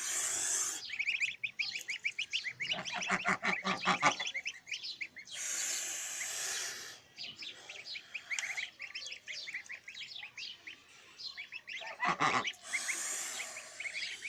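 Goslings peeping, a steady stream of short high chirps, with a lower honking call about three seconds in and another near the twelve-second mark, and a few short bursts of hissing noise.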